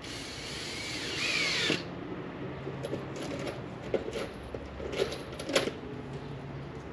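Power drill driving long wood screws into a 2x4 stud. The motor runs hard for nearly two seconds, its pitch bending as it takes the load, then stops suddenly. A low hum follows, with a few sharp clicks.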